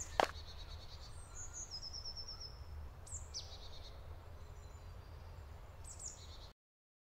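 Forest ambience: small birds singing short high chirps and trills a few times over a steady low rumble, with one footstep on the track right at the start. The sound cuts off suddenly near the end.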